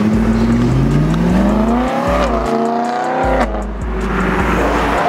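A car engine revving up as the car accelerates along the road, its pitch climbing steadily for about three seconds, then cutting off abruptly. A steady thumping bass beat runs underneath.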